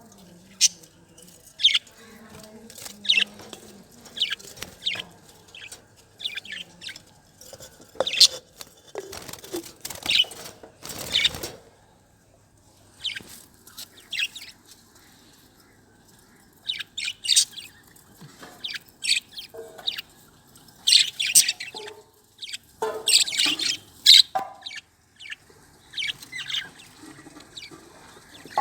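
Budgerigars chirping and chattering: many short, high chirps in irregular runs, with a brief rustling flutter about ten seconds in.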